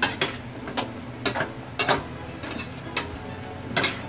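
Metal spatula scraping and clinking against a wok while string beans and pork are stirred, in about eight irregular strokes, with a faint sizzle of the frying underneath.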